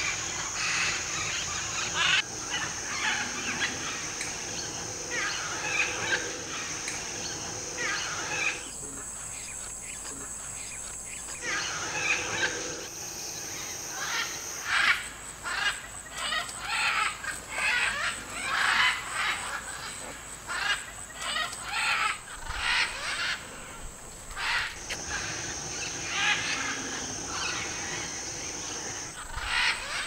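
Rainforest parrots calling: a flock of small green parakeets chattering, then from about halfway loud, harsh squawks of macaws in flight, coming one after another. A steady high insect drone runs underneath.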